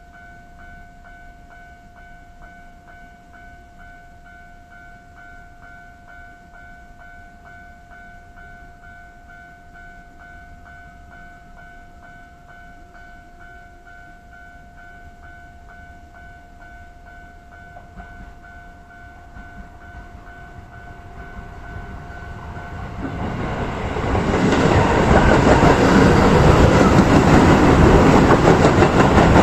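Japanese railway level crossing alarm ringing its repeating electronic ding in an even rhythm. From about 20 s a Keio Line electric train approaches, and it runs loudly through the crossing from about 24 s, drowning out the bell.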